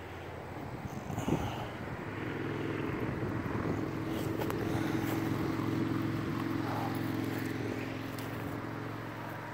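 A passing engine: a steady hum swells over a few seconds and then fades, with a short knock about a second in.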